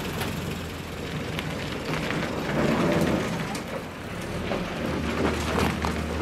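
1954 Land Rover Series 1 engine running as the vehicle pulls away and drives past on a dirt track, with rattles and crunching from the tyres and body.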